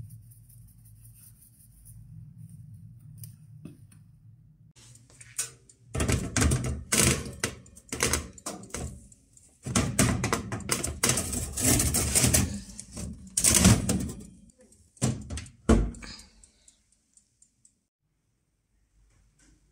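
Metal baking tray clattering and scraping against the oven's rack runners as it is slid into the oven, ending in a heavy thump, typical of the oven door being shut.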